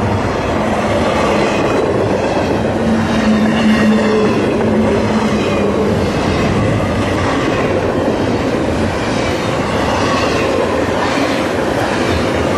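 Double-stack intermodal freight train's well cars rolling past at close range: a loud, steady noise of steel wheels running on the rails.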